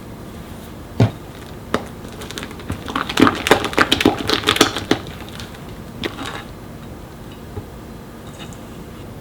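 Kitchen utensils knocking and clattering: a sharp knock about a second in, another shortly after, then a quick flurry of clicks and taps for about two seconds, and one last knock.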